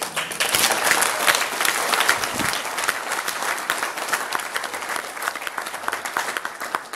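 A room of guests applauding, breaking out suddenly, loudest in the first couple of seconds and slowly thinning out towards the end.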